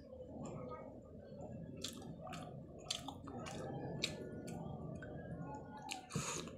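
Close-miked chewing of rice and crispy fried chicken, with steady wet mouth sounds. A few sharp spoon clicks come in the middle, and a short slurp near the end as the next spoonful goes in.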